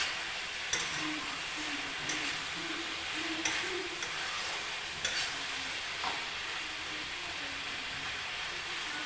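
Food sizzling in a hot pan, with a steady frying hiss. A spoon knocks and scrapes against the pan now and then as the food is stirred.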